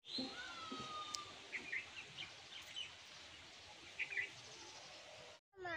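Birds chirping and calling over a steady outdoor hiss: a falling whistle near the start, then short chirps scattered through. It cuts off suddenly near the end.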